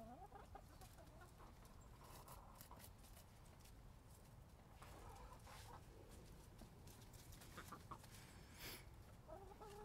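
Hens clucking and calling softly and faintly, a few short calls scattered through, with some faint ticks between them.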